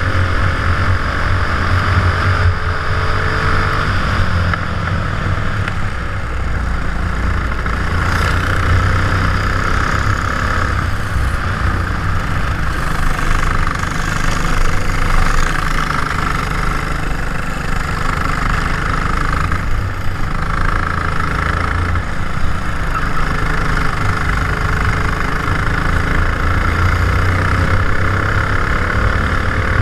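Racing kart engine running steadily under way, heard through a helmet-mounted GoPro in its waterproof housing, mixed with a constant rush of wind noise.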